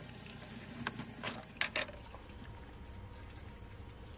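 A few light clicks and knocks from parts being handled in the engine bay as a coolant hose is moved, four of them within the first two seconds, over a faint steady low hum.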